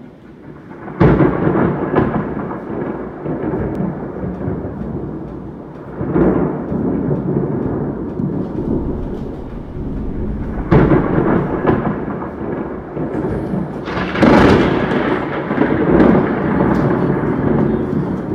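Thunder during a thunderstorm: sharp cracks about a second in, again near six and eleven seconds, and a long loud one around fourteen seconds, each trailing into a rolling rumble, with rain falling throughout.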